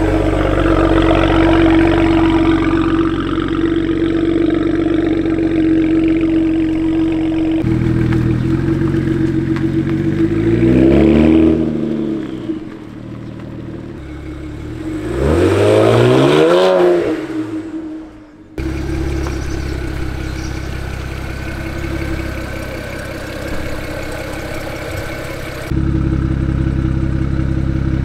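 BMW 335i's N54 twin-turbo straight-six running, its revs rising and falling twice in the middle as the car pulls away. The sound is broken by several abrupt cuts between pieces.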